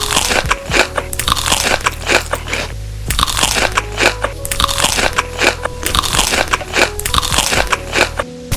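Close, rapid crunching and biting of crunchy food, with a brief lull about three seconds in, over background music.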